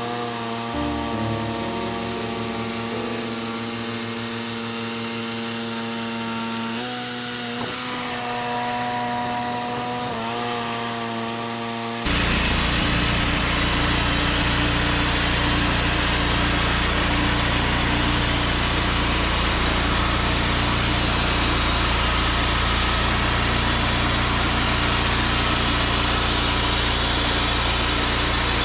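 Background music for about twelve seconds, then an abrupt cut to a Wood-Mizer LT40 band sawmill running and sawing timber, a loud steady machine noise with a low hum.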